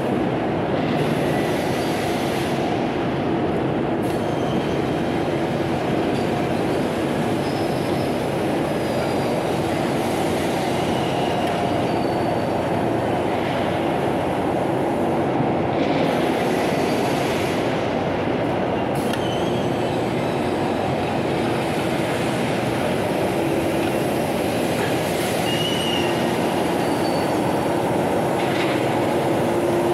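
Fiber cement board production line machinery running: a steady, even mechanical noise from conveyors and board stacking and handling gear, with a few short, faint squeaks.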